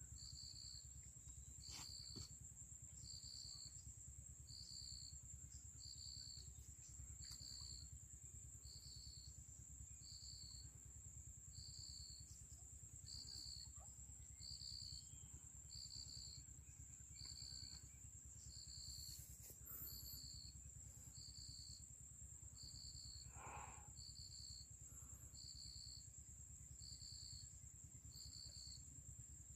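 Faint insects calling: one keeps up a continuous high-pitched trill while another chirps at a steady rhythm, about once every second and a half, over a low rumble.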